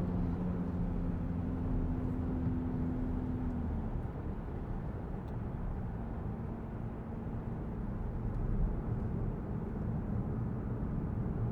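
Citroen C5 Aircross with a 1.5-litre diesel driving along: steady engine hum over tyre and road rumble. The engine note fades about four seconds in and returns slightly lower a couple of seconds later.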